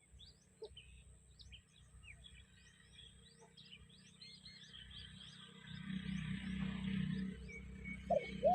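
Small birds chirping with quick rising notes, and a dove cooing near the end. A low rumble with a hiss builds from about halfway.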